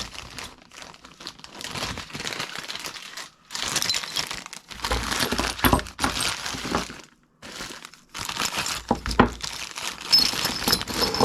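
Packaging crinkling and rustling in several bursts of a second or two as the kit's laser-cut plates are unwrapped and handled. Brief quiet gaps and a few sharp light knocks come between the bursts.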